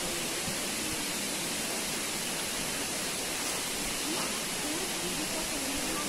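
Steady rushing of Khandadhar waterfall, water streaming and falling down a steep rock face.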